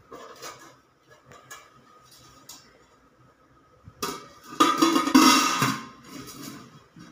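Steel lid clattering and scraping onto a stainless steel cooking pot with a metallic ring, loudest for about a second around five seconds in. Light clinks come before it.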